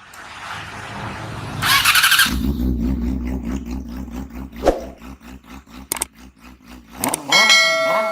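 Motorcycle engine cranking over briefly and catching, then idling with a steady low pulse. Ringing tones with pitch glides come in near the end.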